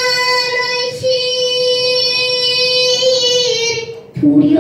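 A young girl singing pansori, Korean narrative song, solo. She holds one long note with a short break about a second in, lets it sag slightly, then drops to a lower note near the end.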